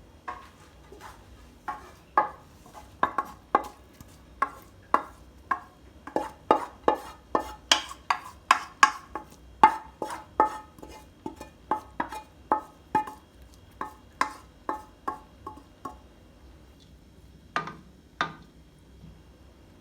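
Metal spoon repeatedly knocking against a metal cooking pot (sufuria), about two sharp knocks a second, each with a short ring, as rice is spooned on as the top layer of a chicken biryani. The knocks stop, then two more come near the end.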